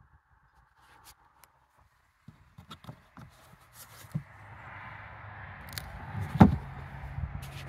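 Rustling and handling noise with small clicks as a storage bin lid behind the seats is worked, with one sharp clack about six and a half seconds in, the loudest sound, as the lid is lifted.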